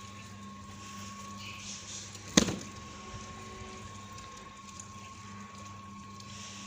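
Washing machine running with a steady hum and a faint sloshing of water, broken once about two and a half seconds in by a single sharp knock, the loudest sound here.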